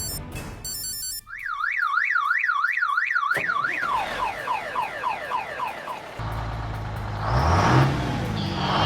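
Warbling siren-like alarm sound effect, rising and falling about three times a second for a few seconds and then fading out in echoes. A little over halfway through, a low engine drone starts up and rises in pitch as it revs.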